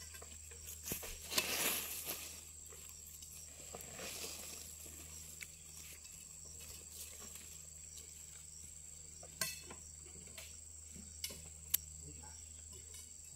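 Steady high insect chirring, with a rustling burst about a second and a half in and a couple of sharp knocks later on.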